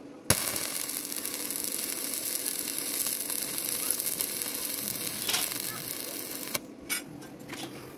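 Stick-welding arc crackling and hissing steadily as a rod electrode runs a bead joining a steel plate to a steel bar. It strikes with a sharp crack just after the start, runs for about six seconds, cuts off suddenly, then sparks again briefly about a second later.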